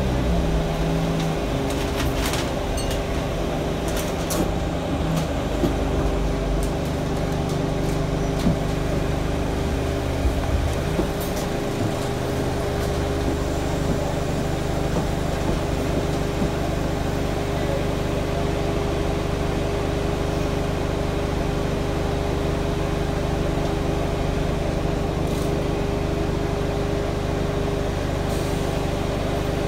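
Alexander Dennis Enviro 200 bus's diesel engine and drivetrain heard from inside the cabin, running steadily under way, with a steady whine over it from the engine cooling fan. A few rattles and clicks come in the first five seconds, and the engine note shifts about eleven seconds in.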